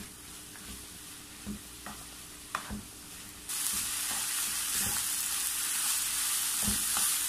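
Wooden spatula stirring and scraping ash gourd and coconut stir fry in a frying pan, with a few light knocks against the pan, as the dish is cooked dry of its last moisture. A sizzling hiss comes in suddenly about halfway through and keeps on.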